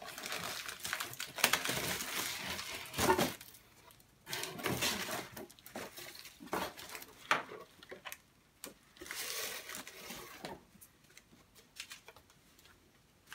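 Paper and packaging rustling and crinkling in several bursts as hands dig through a cardboard subscription box, with a few small knocks.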